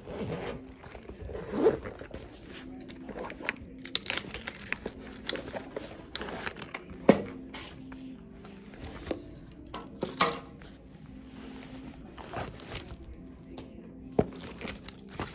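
A nylon backpack's metal zipper being opened and the bag rummaged through: rustling fabric with irregular clicks and knocks of things being moved inside, the sharpest about 2, 7 and 10 seconds in.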